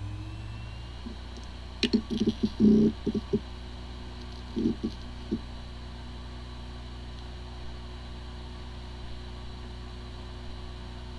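Hard disk drive with corrupted firmware, spinning normally with a steady hum. A faint rising whine fades out about a second in, then two short runs of quick clicks and ticks from the drive come around two seconds and again near five seconds. It sounds like a healthy drive even though the computer cannot detect it, which is typical of disk firmware corruption.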